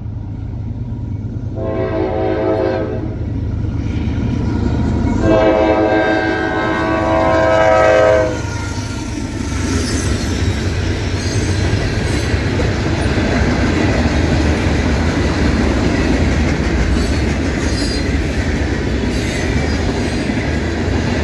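A Norfolk Southern manifest freight train led by a GE AC44C6M locomotive sounds its multi-note air horn: a shorter blast and then a long blast ending about eight seconds in, typical of the close of a grade-crossing signal. Then the locomotive and freight cars roll past with a steady loud rumble and wheel clatter.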